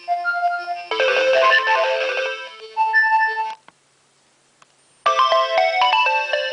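Nokia 2300 mobile phone ringtones: one electronic melody in chords plays and stops about three and a half seconds in. After a second and a half of near silence with one faint click, the next ringtone melody starts.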